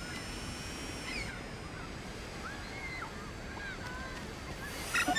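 Cartoon beach ambience: a steady wash of surf with faint, short bird cries over it. Near the end, loud, quick electronic sweeps rise and fall in pitch.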